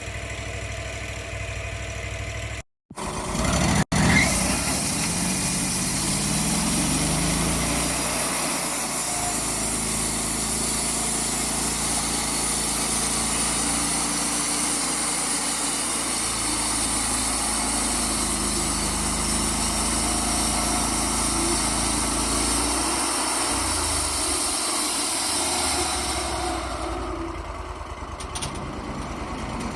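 Wood-Mizer LT35 HD sawmill running with a freshly fitted band blade. From about four seconds in it is cutting through an aspen log, loud and steady with a strong hiss. Near the end the cut finishes and the engine drops back to a quieter, steady run.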